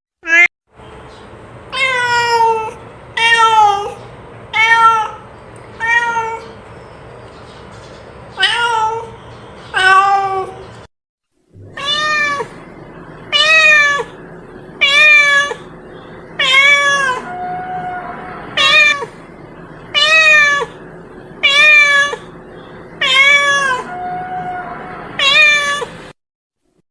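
A cat meowing over and over, short calls about one a second that fall in pitch at the end. Twice the sound cuts out to dead silence for a moment.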